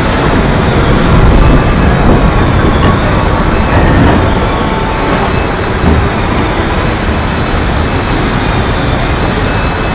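Steady, loud rumbling machinery and ventilation noise of a boat-building factory floor.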